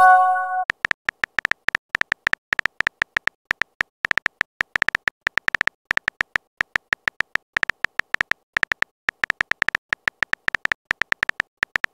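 Texting-app sound effects: a short message-sent chime of a few blended tones right at the start, then a fast, irregular run of keyboard typing clicks, each a short tick with a slight beep-like ring.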